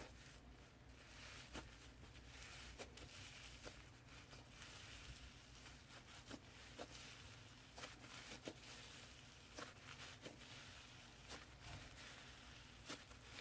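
Crunchy slime being pressed and pulled by hand, giving faint, irregular crackles and small pops.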